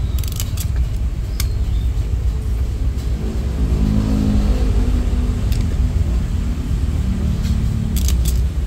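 A motor vehicle engine running close by, a steady low rumble that swells and rises a little in pitch around the middle. There are a few sharp clicks near the start and near the end.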